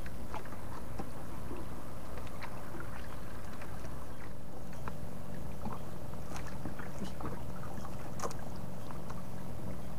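A boat engine humming steadily, with scattered light knocks and splashes of water against the hull.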